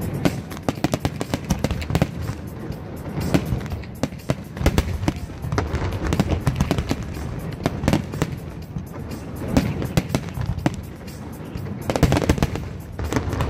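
Aerial firework shells bursting in a rapid, overlapping string of bangs and crackles, with a dense flurry near the end.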